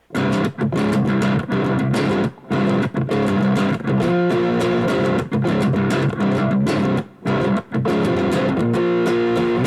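S-type electric guitar with its three Wilkinson Alnico V single-coil pickups switched all in parallel, played through high-gain distortion: a chord riff with several short muted breaks, the last chord left ringing.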